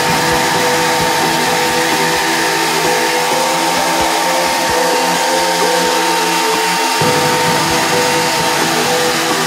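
Handheld hair dryer running steadily, blowing on a dog's coat: a constant whir with a thin steady whine.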